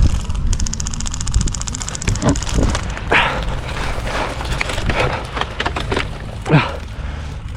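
A rapid full-auto burst from an airsoft gun, lasting about a second, followed by voices calling out with rumbling wind and handling noise.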